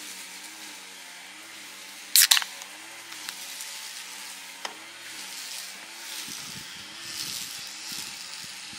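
A can of Yebisu beer pulled open about two seconds in: a short, sharp crack and hiss from the pull-tab.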